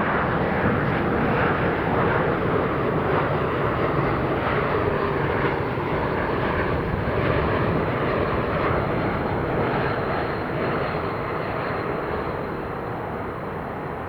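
Jet airliner's engines at high power, a loud, steady rushing noise that slowly fades toward the end.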